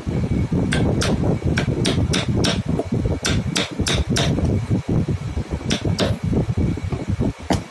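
Wooden mallet striking a wood-handled chisel as it carves into a cut-out wooden piece: about a dozen sharp knocks in short runs of two to four, roughly three a second, with pauses between runs and a single knock near the end. A steady low hum runs underneath.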